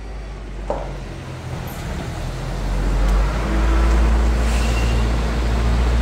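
1984 Toyota pickup's carbureted four-cylinder engine running as the truck drives in and pulls up close, growing steadily louder. A short sharp squeak comes under a second in, and a brief high squeal about two-thirds of the way through.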